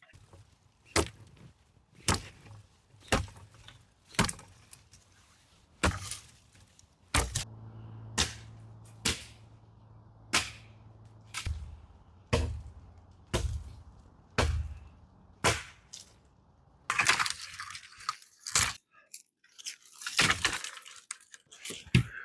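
A series of sharp cracks or knocks, about one a second, then a denser run of noisy crunching and scraping for the last few seconds.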